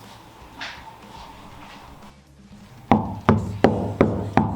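Knocking on the sheet-metal floor of a Volvo C202 to test its sound damping. Five sharp knocks come about three a second, starting a little before halfway.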